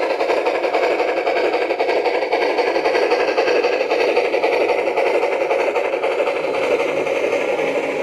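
SoundTraxx Tsunami2 sound decoder in a G-scale Bachmann two-truck Shay playing steady, fast steam-exhaust chuffing through the model's speaker as the locomotive runs, mixed with the running noise of its wheels and gears on the track.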